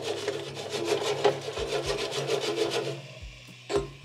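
Cauliflower florets being shaken in an air fryer basket: a quick, even rattling and scraping of the pieces against the basket, several strokes a second, that stops about three seconds in, followed by a single knock near the end.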